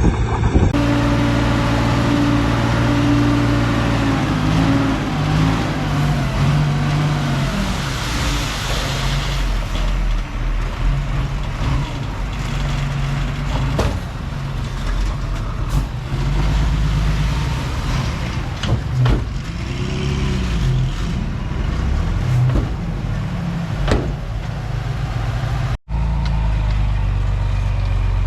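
Bulldozer's diesel engine running under load, its pitch rising and falling as the machine works, with occasional metallic clanks. The sound breaks off for an instant near the end.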